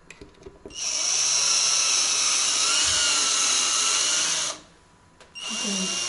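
Cordless drill-driver driving a wood screw into a built-in dishwasher's mounting hole. It gives a steady whine for about four seconds, stops briefly, then runs again near the end.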